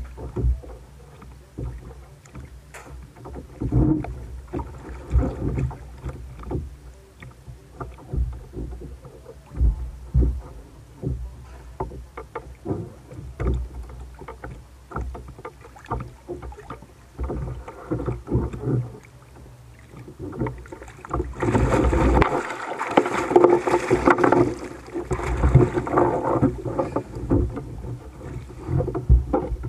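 Water slapping and sloshing against a Hobie Revolution 16 kayak's plastic hull, with irregular knocks and thumps on the hull. About two-thirds of the way through comes a loud stretch of splashing as a swimmer hauls himself out of the water up onto the kayak's seat.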